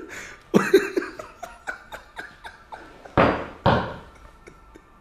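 A man laughing in short breathy bursts, with two louder bursts a little after three seconds in.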